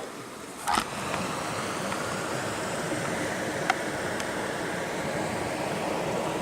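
A sharp click under a second in, then a steady rush of flowing river water.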